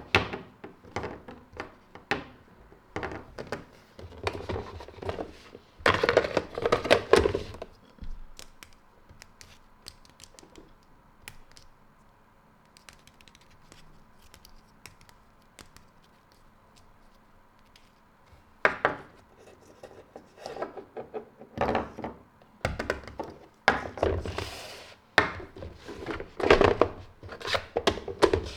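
Plastic toy pieces and their packaging being handled: clusters of light knocks, taps and clicks with crinkling and rustling. About a third of the way in it goes quiet for some ten seconds, then the knocking and rustling start again.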